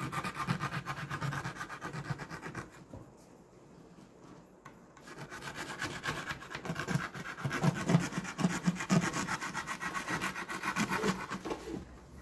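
Utility knife blade cutting through glued fabric over the speaker opening, in quick repeated sawing strokes that pause for about two seconds around three seconds in, then resume.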